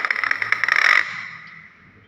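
Hill myna giving a harsh, rapidly pulsing buzzy call that stops about a second in.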